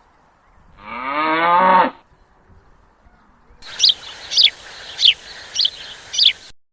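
Recorded animal calls played back by a crop-protector sound device: a cow's moo of about a second, then a bird call of five quick descending chirps. Each sample starts and stops abruptly, as a loudspeaker playback does.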